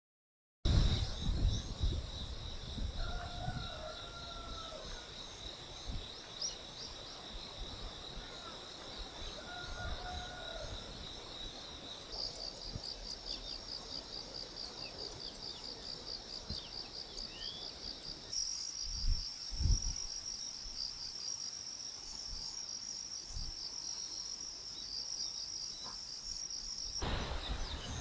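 A chorus of insects trilling steadily at a high pitch, its pitch and rhythm shifting abruptly a few times. A bird calls twice, briefly, in the first half, and there are a few low thumps near the two-thirds mark.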